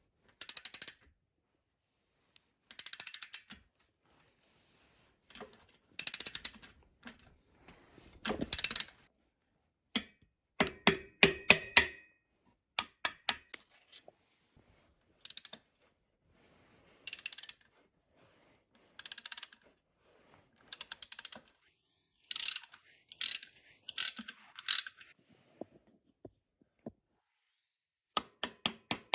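Hand tools working on motorcycle parts during disassembly: short bursts of ratchet wrench clicking and metal clinks, separated by silences. About a third of the way in there is a run of ringing metal strikes, and near the end a fast, even ratcheting.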